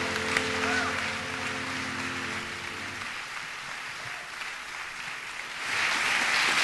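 Audience applauding at the end of a song while the last held chord of piano and voices rings out and fades. The clapping grows louder about two-thirds of the way through.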